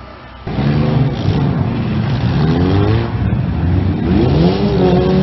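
Demolition derby cars' engines revving and accelerating, starting suddenly and climbing in pitch twice.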